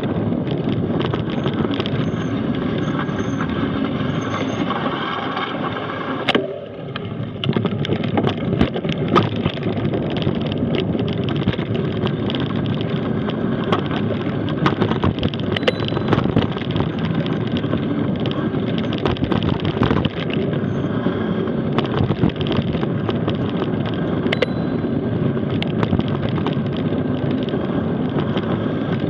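Mountain bike coasting fast down a gravel and dirt forest road: steady tyre rumble over the loose surface, with frequent clicks and rattles from the bike over bumps and a sharper knock about six seconds in.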